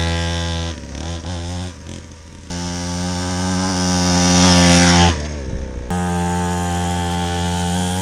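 Small 50cc two-stroke pit bike engine running at a near-steady pitch as the bike is ridden. It turns quieter and choppier about a second in, comes back loud and bright, then eases off about five seconds in. It carries on steadily and more softly near the end.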